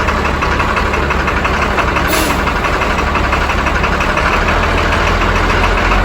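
Truck engine running steadily, with a brief high hiss about two seconds in.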